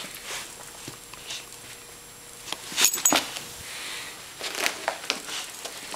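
A puppy at play: scattered clicks, scratches and rustling, with two sharper knocks about three seconds in.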